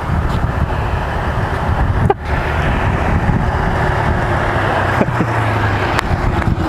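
Road traffic: motor vehicles running and passing close by, a steady rumble with road noise.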